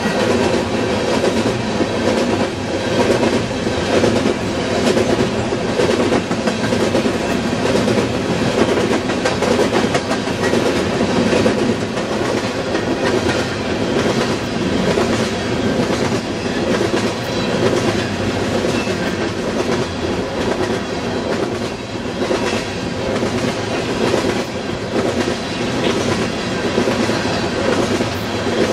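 Coal train's cars rolling past: a steady rumble of steel wheels on rail with repeated clicks as the wheels cross rail joints.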